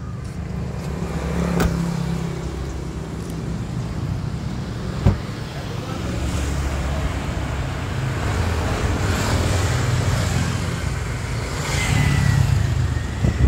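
Motor vehicle traffic: a steady low rumble of cars running and passing, with a sharp click about five seconds in.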